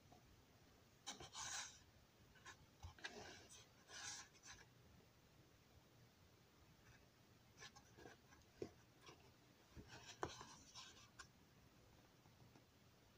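Faint scratching and rubbing of hands handling a model railroad building, in several short bursts with small clicks between them.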